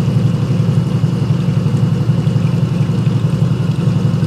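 Engine of a lifted off-road vehicle idling steadily: a loud, low, even rumble with a fast regular pulse.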